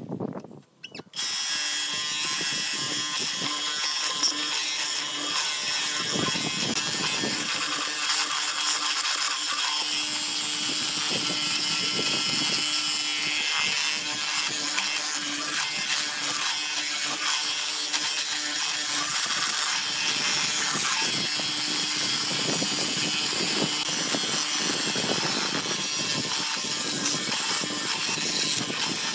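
Benchtop hollow-chisel mortiser running steadily, its auger bit and square chisel boring into a wooden block. The machine noise comes in abruptly about a second in.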